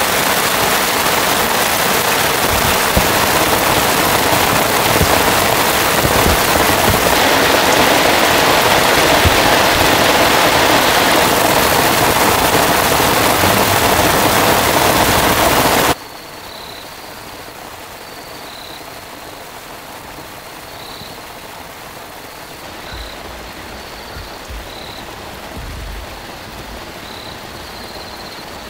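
Heavy rain pouring down steadily, cutting off abruptly a little past halfway to a much quieter night background with short, high-pitched chirps repeating every second or so.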